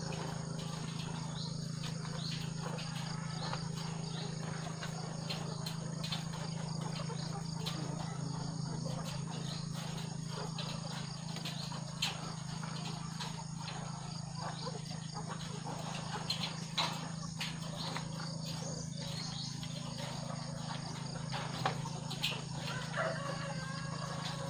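Ambience of a caged layer-hen shed: steady insect chirring over a low hum, with scattered clicks and taps from the caged hens and a few soft hen calls near the end.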